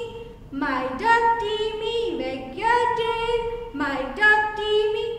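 A woman singing a nursery rhyme unaccompanied, holding long notes that slide up and down between short phrases.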